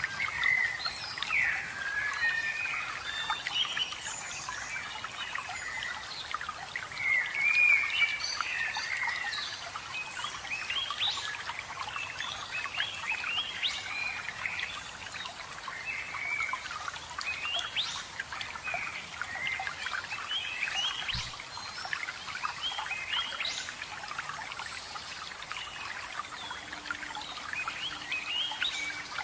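Several forest birds singing and chirping at once, many quick rising and falling whistles and trills, over a steady rush of running water.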